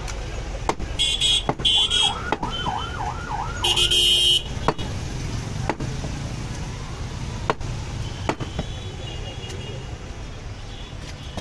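Butcher's cleaver chopping meat on a wooden block, single sharp knocks every second or so. Between about one and four and a half seconds in, a vehicle horn or alarm blares twice, with a warbling siren-like tone between the blasts, louder than the chopping.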